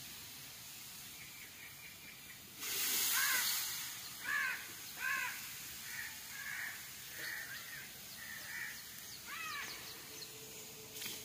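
A crow cawing repeatedly, about eight caws, the first few loudest. A brief burst of hiss comes about two and a half seconds in.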